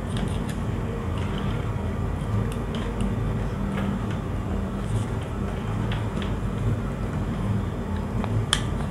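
Small clicks and scrapes of a screwdriver and wire ends being worked into the screw terminals of a push-button switch, a sharper click near the end, over a steady low background hum.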